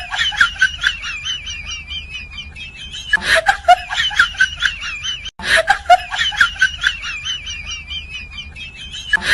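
A looped comic sound clip: a warbling, bird-like whistle over quick clicks and bursts of giggling. The same few seconds play twice, restarting about five seconds in.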